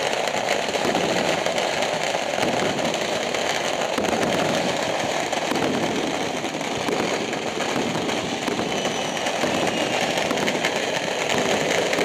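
Massed firecrackers and fireworks going off all at once across a city, a dense, continuous crackle of countless small bangs with no break.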